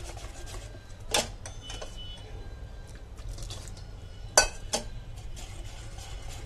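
Wire whisk stirring thick rice batter in a stainless steel bowl: quick light ticking of the wires on the metal, with a sharp clink about a second in and two more about four and a half seconds in. Hot water is being whisked in a little at a time so the batter does not form lumps.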